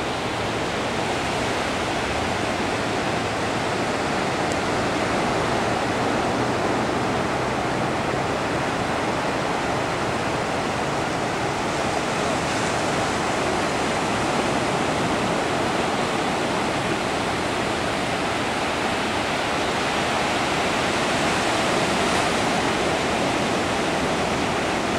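Steady, continuous wash of surf breaking along the shoreline.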